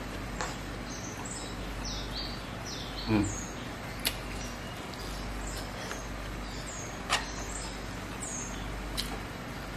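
Mouth sounds of eating rice and rendang by hand: chewing with several sharp wet lip-smacks and clicks, and a brief low falling sound about three seconds in, the loudest moment. Small birds chirp in short, high, falling notes in the background.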